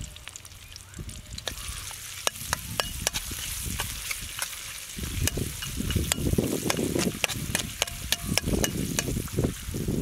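Chopped onions and green chillies sizzling in hot oil in a metal kadai, with frequent sharp crackles and pops. From about halfway through, a spatula stirs them, scraping against the pan.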